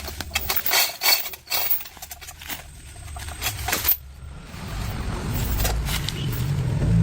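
Metal parts clinking and tapping over a low hum for the first few seconds; then, from about four seconds in, an engine runs steadily and grows louder.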